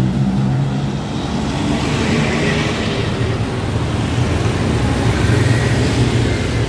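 Busy street traffic: cars and motor scooters passing close by, with a continuous low engine hum over road noise. The hum dips about a second in and builds again toward the end.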